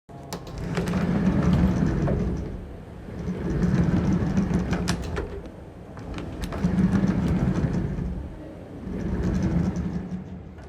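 Sugatsune FD-series top-hung sliding door rolling along its top rail, slid back and forth four times with a gritty rumble and scattered crackling ticks. This is the abnormal rail noise caused by cutting chips left in the top rail after it was cut.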